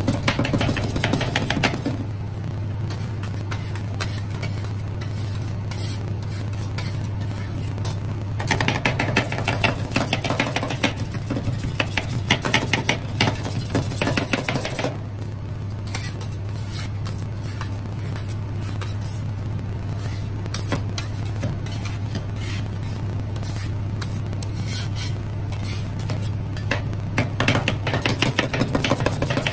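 Two metal spatulas chopping and scraping ice cream mixture on a stainless steel cold plate, in rapid spells of strokes at the start, from about eight to fifteen seconds in, and near the end, while it freezes. Under it the ice roll machine's refrigeration unit hums steadily.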